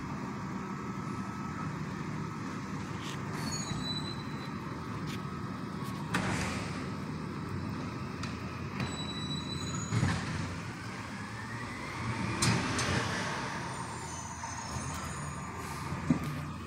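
Garbage truck running nearby with a steady engine rumble, broken by several sudden bursts of noise and a rising whine from about ten to thirteen seconds in.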